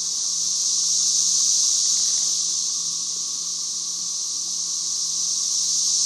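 A dense chorus of cicadas: a steady, shrill, high-pitched drone that swells and eases slightly.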